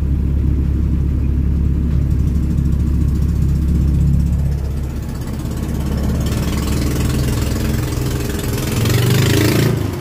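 Fishing boat's engine running steadily under way, a low drone. From about six seconds in, rushing, splashing water grows louder alongside the hull and is loudest near the end.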